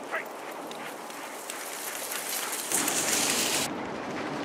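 Six-dog sled team running past on packed snow: a steady hiss of paws and sled runners on the snow, louder and brighter for about a second near the middle as the team passes close, then cut off abruptly.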